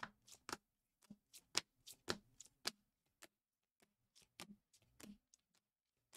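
Trading cards in rigid plastic holders flipped through by hand, the holders clicking and sliding against each other: a faint run of short, irregular clicks in small clusters.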